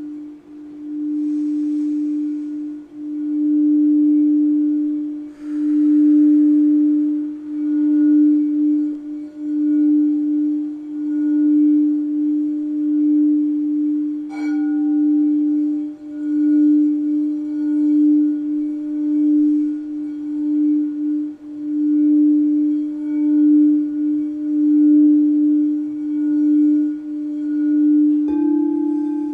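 Crystal quartz singing bowl sung around its rim: one steady low tone that swells and fades in slow waves. About halfway through, a higher ring is struck once, and near the end a second, higher tone joins in.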